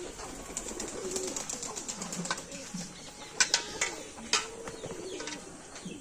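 Domestic pigeons cooing in low, rolling calls. A few sharp clicks come a little past halfway, louder than the cooing.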